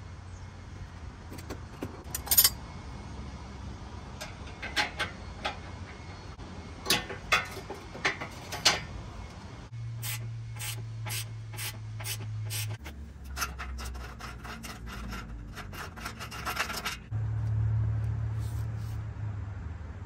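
Hand ratchet working a nut or bolt on the bumper hardware: scattered sharp metal clicks, then about halfway through a fast, even run of ratchet clicks, several a second, lasting several seconds. A low steady hum sits underneath and gets louder near the end.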